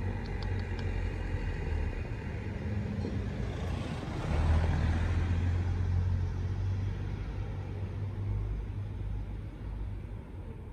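Low rumble of road traffic, swelling as a vehicle passes about four seconds in, then easing off.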